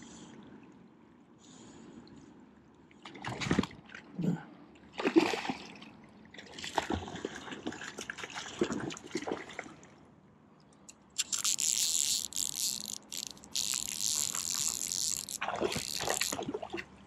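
Water splashing at the river's edge in irregular bursts, turning into a louder, nearly continuous run of splashing in the second half.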